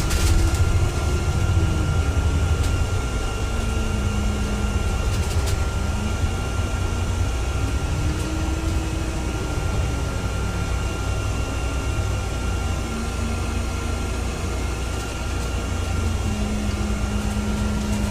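Inside a moving bus: the engine is running under a heavy low rumble, its note rising and falling several times as the bus drives on, with a thin steady high whine and a couple of sharp rattles.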